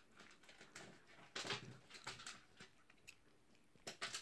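A cat eating food held out by hand: brief soft crunching and rustling sounds, loudest about a second and a half in and again near the end.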